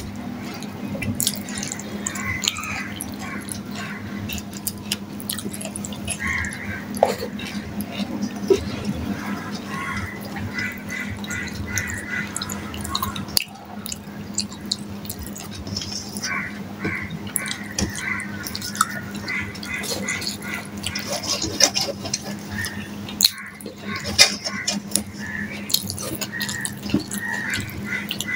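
Wet chewing and lip-smacking of someone eating rice and fried fish by hand, with many small clicks and smacks, and fingers gathering food on a steel plate.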